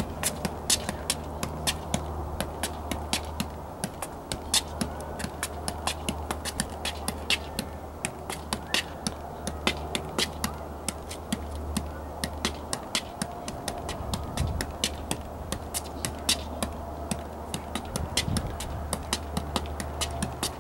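A soccer ball being juggled, kicked up again and again by foot and knee: a long unbroken run of sharp light taps, about three a second, over a steady low hum.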